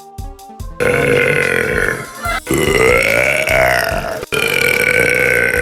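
A young woman letting out a long, loud burp about a second in, drawn out in three stretches with short breaks, its pitch rising and falling in the middle. Background music with a beat plays just before it.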